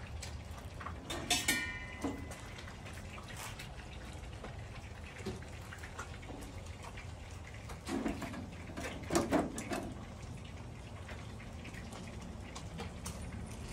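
Steady low background hum with a few soft taps and scuffs, and a brief high chirp about a second and a half in.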